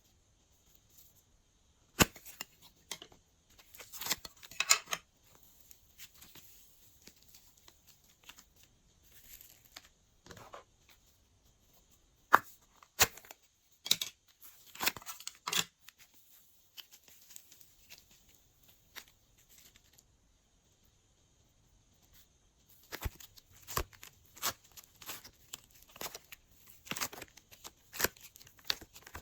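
Glossy slime being pressed and stretched by hand: scattered sharp pops and crackles, some single and some in quick clusters, with a long quiet stretch in the middle and a busier run of crackles near the end.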